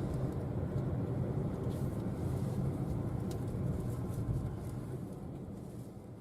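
Road traffic: a steady rush of passing cars, fading away near the end.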